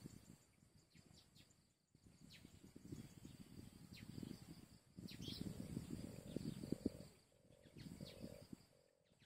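Faint outdoor ambience: low rustling and crackling in uneven bursts under a steady high insect buzz, with a few faint, short high chirps.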